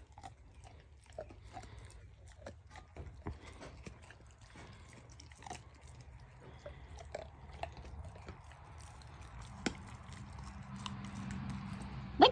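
Dog chewing and gnawing a piece of raw meat: irregular, quiet crunches and clicks.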